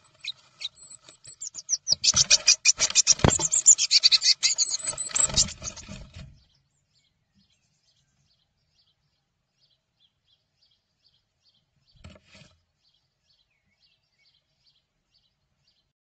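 Eurasian blue tits fighting inside a wooden nest box: rapid, harsh, high chattering calls over scuffling and wing-flapping thumps against the box. It stops about six seconds in, with one brief scuffle near twelve seconds.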